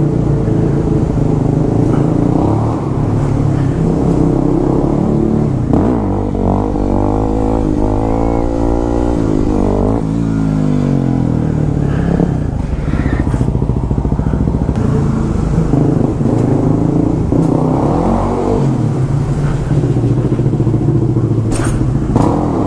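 Yamaha WR250R supermoto's single-cylinder four-stroke engine running under the rider, revving up and falling back several times as the bike is ridden. A sharp click comes near the end.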